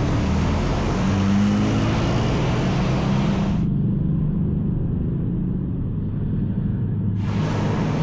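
Motor vehicle engine running with a low rumble, its pitch rising about a second in as it revs. The hiss above it drops out for about three and a half seconds in the middle, leaving the sound duller.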